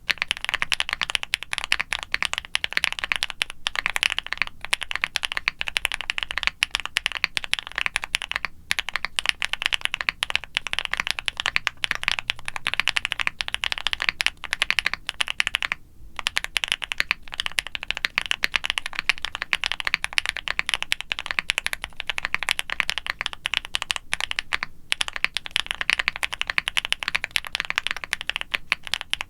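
Continuous fast typing on a mechanical keyboard: a QwertyKeys QK65 aluminium case with polycarbonate plate and full foam dampening, Gateron Smoothie linear switches (factory-lubed, about 40 g) and GMK ABS doubleshot keycaps. Dense keystroke clacks with a few short pauses, around 4, 8, 16 and 25 seconds in.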